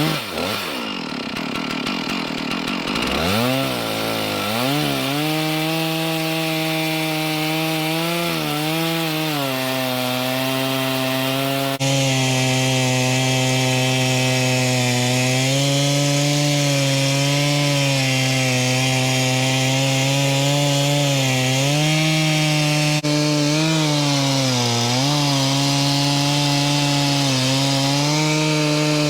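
Stihl chainsaw on a Granberg Alaskan chainsaw mill, ripping lengthwise through a big white pine log at full throttle. The engine revs up over the first few seconds, then holds a steady pitch that sags briefly now and then as the chain bogs in the cut.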